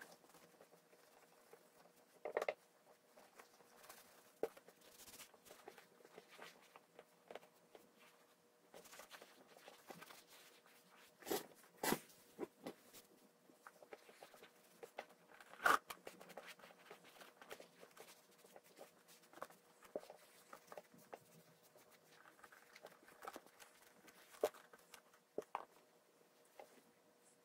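Quiet handling noises from a leather riding boot being turned and moved about on a towel: soft rubbing and rustling with scattered light knocks, the sharpest a few seconds in and about halfway through, over a faint steady hum.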